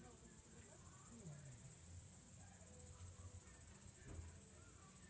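Crickets or other night insects chirring in a steady, high-pitched chorus, with faint voices in the background.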